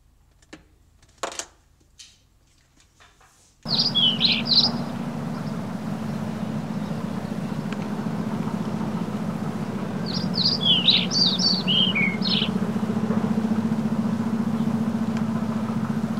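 A few sharp knocks of wooden panels being fitted into furniture, then about four seconds in a nature-sound recording cuts in: songbirds chirping in two short bouts over a steady hiss and low hum.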